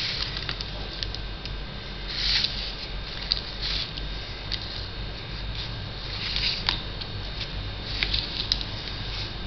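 Silicone spatula spreading thick chocolate sauce over barfi in a paper-lined plastic tray: soft wet smearing and scraping, with a few brief rustles and light clicks as the spatula and hand work against the paper and tray.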